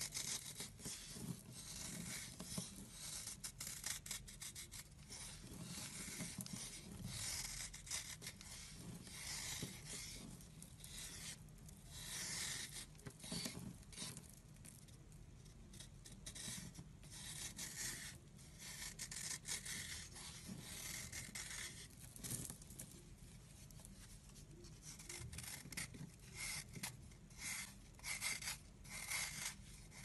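Knife blade scraping and shaving dry, crumbly soap in many short, irregular strokes, with the crunch of the soap crumbling and flaking off.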